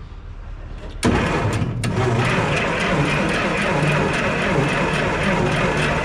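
Oliver 525 combine's engine being cranked over by its starter, a loud steady churning that begins suddenly about a second in and does not catch. It will not fire because no power is reaching the ignition coil.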